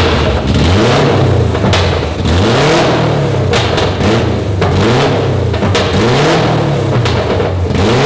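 A lifted Mazda Miata's four-cylinder engine, running a burble tune through a header pipe that exits straight out the bottom, revved in repeated blips about once a second. Sharp pops and crackles come between the revs.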